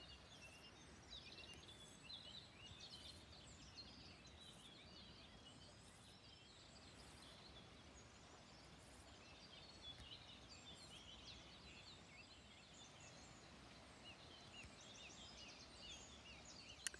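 Faint outdoor birdsong: many short, high chirps from small birds scattered throughout, over a low steady hush.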